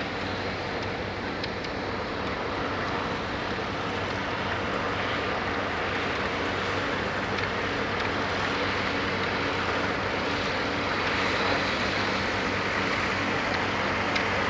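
Antique Empire tractor engine running steadily at a slow parade pace, growing slightly louder as it comes closer.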